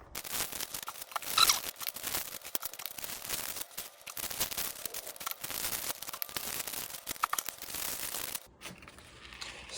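Paper wrappers of crackling-ball fireworks being torn open and crumpled as their crackling stars are dumped out: continuous papery rustling and tearing with many small clicks, stopping about eight and a half seconds in.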